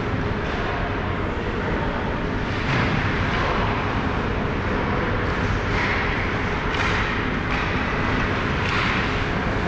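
Ice hockey rink ambience: a steady rush of noise with occasional short scrapes and knocks from skates and sticks in play at the far end of the ice.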